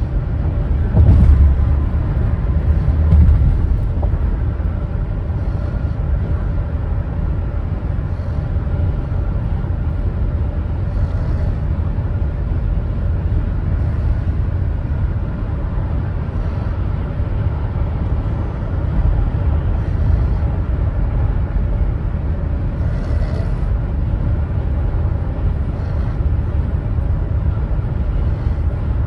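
Steady low rumble of a moving vehicle, road and engine noise, with two louder bumps about one and three seconds in.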